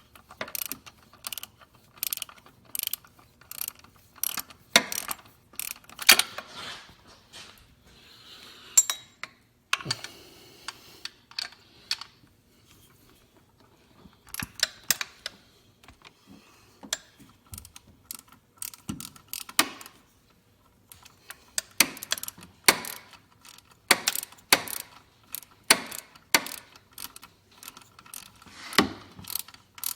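Socket ratchet clicking in a long series of strokes, about two to three a second with a sparser stretch midway, as an alternator mounting bolt is run in.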